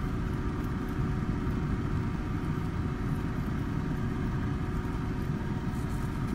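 A small electric motor in the airbrushing setup running steadily: a constant low drone with a faint steady hum on top.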